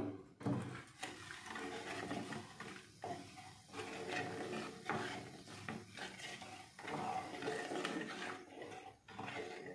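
A spatula stirring hot milk in an aluminium pressure cooker to dissolve sugar, scraping and sloshing with repeated knocks against the pot.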